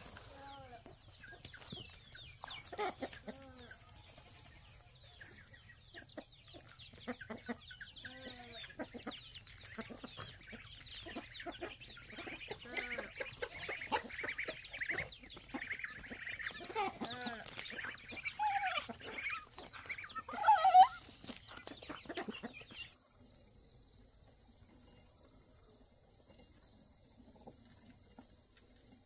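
A flock of chickens clucking and calling in many short, overlapping calls, loudest near the end. The calls cut off abruptly about three-quarters of the way through, leaving a steady high insect chirring.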